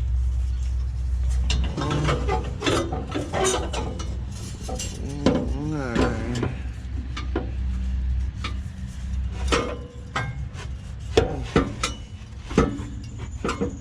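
Scattered metal clinks and knocks as a homemade exhaust pipe is worked and shoved up into place under a vehicle, over a low steady hum.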